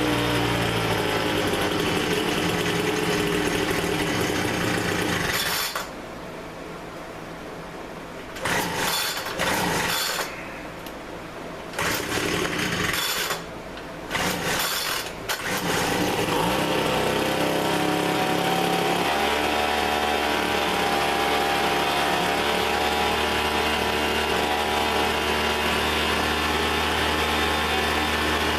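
Two-stroke leaf blower engine running on its test run after carb and fuel-line work. It drops away about six seconds in, comes back in three short bursts, then runs steadily again from about sixteen seconds on.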